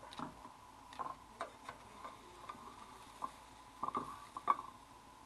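Scattered light clicks and taps of a spatula against a frying pan while a grilled cheese sandwich is pressed down, over a faint steady tone.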